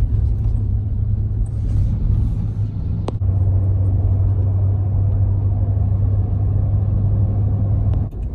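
Steady low drone of a car's engine and tyre noise heard from inside the cabin while driving. The drone steps abruptly louder about three seconds in.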